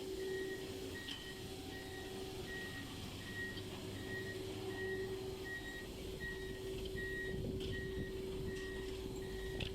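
A high electronic beep repeating evenly, about two beeps a second, over a steady hum and low rumble of a running vehicle.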